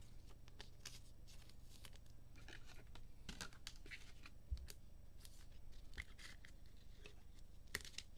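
Faint rustles and light clicks of trading cards and clear plastic card holders being handled, with a few soft knocks on the table.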